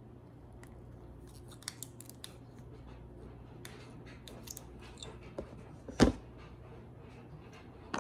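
Scattered small clicks and snips of hand work on parts over a low steady hum, with one loud knock about six seconds in.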